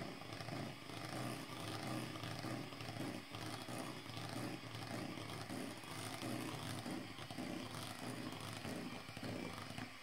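Electric hand mixer running at a steady hum, its wire beaters churning dry flour into a thick cake batter.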